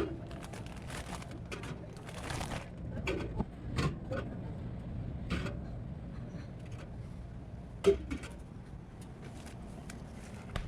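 Drinks being stacked into a refrigerator: scattered short clinks and knocks, a brief rustle about two seconds in and one loud knock near the end, over a steady low hum.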